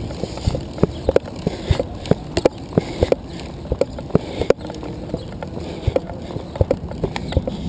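A handcycle rolling along the street, its chain and crank rattling in irregular clicks and knocks, several a second, over a steady rush of road and wind noise.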